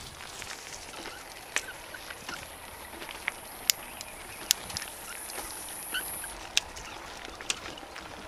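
Bike rolling along a rough dirt track, with sharp clicks and knocks as the bike jolts over bumps, over a low rumble of tyres and wind. A steady high whine runs until about six seconds in, then stops.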